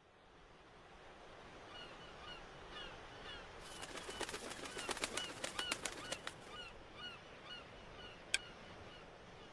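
Seagull-like squawking calls, repeated many times, over a steady sea ambience that fades in. A burst of rapid sharp clicks comes in the middle, and one sharp tick comes near the end.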